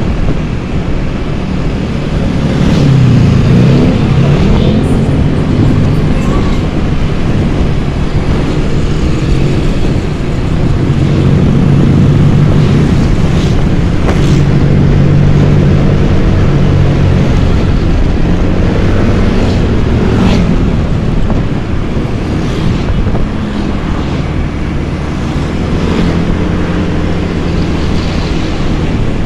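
Motor scooter engine running while riding, with wind buffeting the microphone. The engine pitch dips and climbs again a few times as the rider eases off and speeds up.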